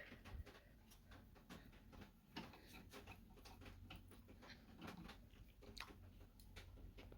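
Near silence with faint, irregular small clicks and taps, from a nail polish brush being dabbed onto a door handle.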